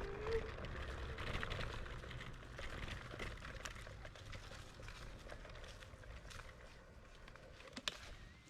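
IO HAWK Legend e-scooter rolling over rough forest ground: a low rumble with many small rattles and knocks, getting quieter over the last few seconds.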